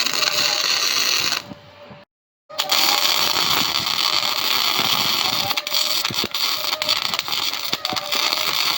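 Electric arc welding: a steady crackling hiss as a welder lays tack welds on steel axle hangers. It stops about a second and a half in and falls silent briefly, then a second, longer weld runs until just before the end.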